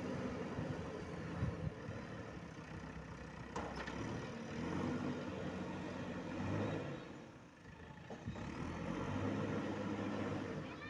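JCB 3DX backhoe loader's diesel engine running under working load, with a couple of sharp knocks early on. Its level drops briefly about two-thirds through, then picks up again.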